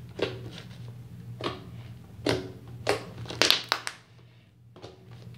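Hands squishing and pressing a thick slime against a stone countertop: a series of separate wet squelches, several in quick succession about three and a half seconds in, over a steady low hum.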